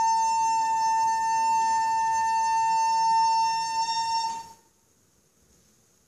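A recorder holds one long, steady high note, which cuts off about four and a half seconds in.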